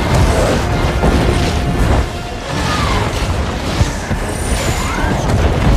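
Film sound effects of a volcanic eruption: a heavy continuous rumble with repeated booming impacts of falling debris, and two short whistling sweeps of projectiles flying past.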